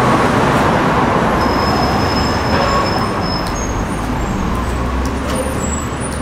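Steady rumble of passing traffic heard inside a concrete underpass, with a few thin, brief high squeals in the middle and near the end.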